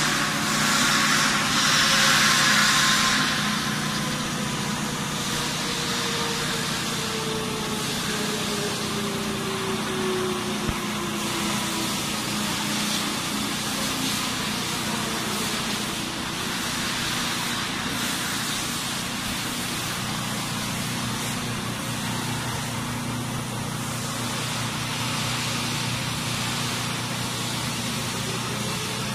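Bridge-type CNC vertical surface grinding machine grinding the face of a large metal ring under flood coolant: a steady machine hum with an even hiss of grinding and coolant spray. The hiss is stronger for the first few seconds, and a faint tone slowly falls in pitch over about the first half.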